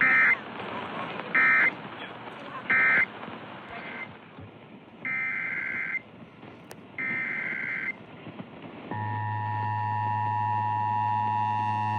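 Emergency Alert System broadcast tones. Three short bursts of screeching digital data tones mark the end of one message, then two longer data bursts carry the header of the next alert. About nine seconds in, the two-tone EAS attention signal starts and holds steady.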